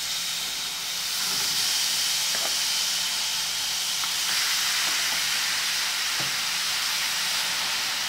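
Raw seasoned chicken fillets sizzling as they go into a hot frying pan of caramelized sugar. A steady hiss gets louder about a second in as more pieces are laid down, with a few faint taps of the fork.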